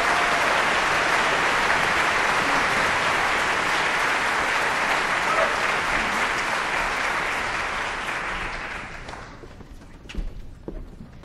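Audience applauding a barbershop chorus at the end of its song, the clapping dying away about nine seconds in. A few scattered knocks follow.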